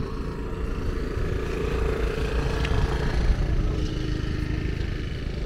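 An engine running steadily at low speed.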